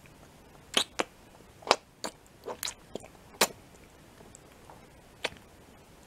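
Close-miked mouth sounds: lips and tongue smacking and sucking at a green plastic candy stick and disc. About nine sharp wet clicks and smacks come in the first three and a half seconds, then one more about five seconds in.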